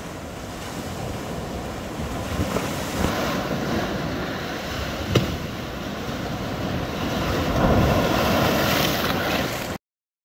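Sea surf breaking and washing over a rocky shoreline, swelling louder in the later seconds, with one sharp click about five seconds in. It cuts off abruptly near the end.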